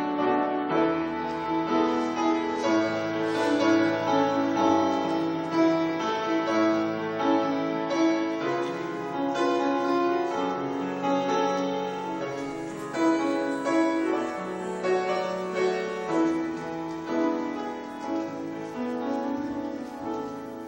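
Grand piano playing slow, sustained chords and a melody on its own, without voices.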